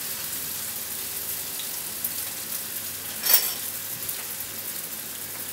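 Rye bread slices frying in hot oil in a pan, a steady sizzle, with one sharp click about three seconds in.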